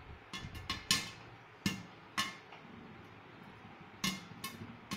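Maize kernels popping in a hot pan under a glass lid: scattered sharp pops, some of them tapping against the lid. There are a few pops in the first two seconds, a lull, then more near the end.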